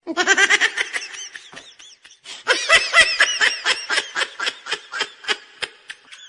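Meme laughter sound effect: a high-pitched laugh in quick, rapidly repeated bursts, in two fits, the second starting a little over two seconds in, each tailing off.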